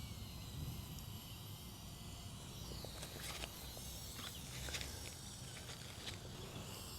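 Quiet outdoor ambience: a steady low rumble with faint insect buzzing and a few light clicks and rustles in the middle.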